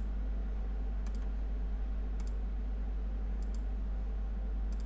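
Computer mouse clicking about once a second, each a quick press-and-release double click, over a steady low hum.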